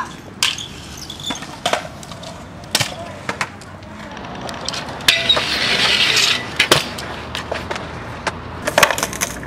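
Stunt scooters' wheels rolling on concrete, with a series of sharp clacks and knocks from the decks and wheels hitting the ground, and a louder rough scraping rush for about a second halfway through.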